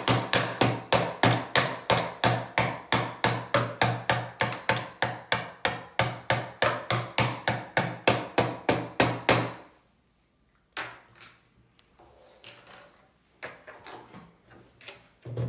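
A child's toy hammer beating rapidly and steadily on a toy workbench, about four strikes a second, stopping about nine and a half seconds in. Quieter, scattered knocks and clatter of handled toy tools follow.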